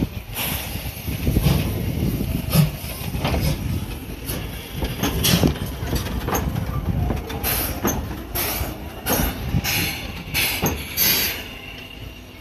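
C11 2-6-4T tank steam locomotive rotating on a turntable: a steady low rumble with a string of short, sharp bursts that come more often in the second half.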